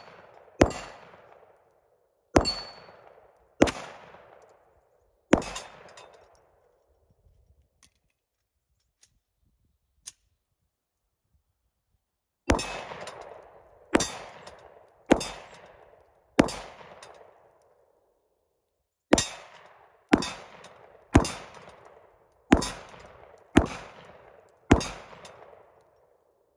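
A 9mm Glock 17 pistol fires fourteen shots at steel targets, each shot followed by the ring of steel being hit. The shots come in strings of four, four and six, about one a second, with a pause of about six seconds after the first string.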